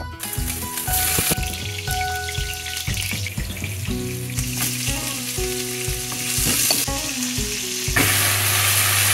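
Saffron milk cap mushrooms coated in egg and flour sizzle in hot oil in a frying pan, a steady hissing crackle. Near the end the sizzle grows louder as vegetables are stir-fried in a wok.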